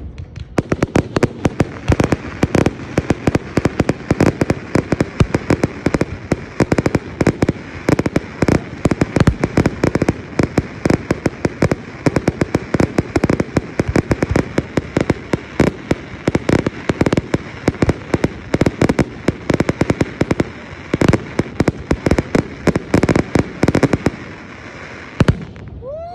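Fireworks going off in a fast, continuous barrage of loud bangs and crackles, several a second, which stops about a second before the end.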